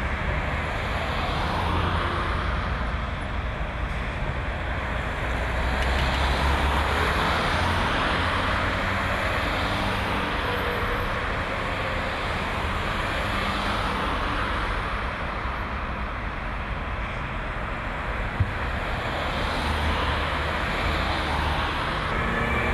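Steady roadway noise of vehicles with the low rumble of running engines, and one sharp click near the end.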